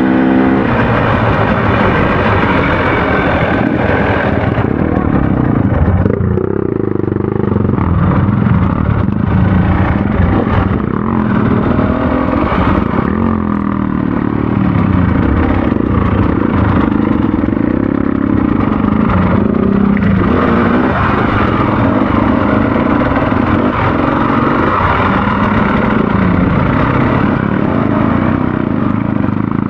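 Off-road enduro motorcycle engine running under way, its revs rising and falling with the throttle as it rides the trail.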